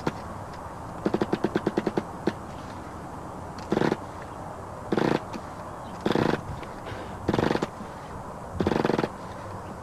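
Small two-stroke nitro (glow-fuel) RC car engine being cranked and failing to catch. About a second in there is a quick run of about ten sharp pops, then five short cranking bursts about a second apart, with no run-up. The owner suspects a bad glow plug.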